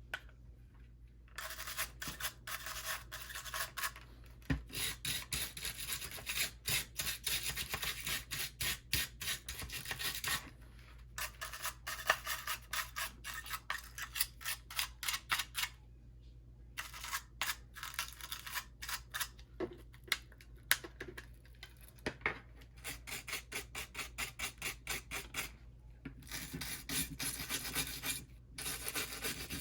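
Nylon brush scrubbing corrosion off small metal battery contacts: rapid back-and-forth scratchy strokes in spells, broken by short pauses.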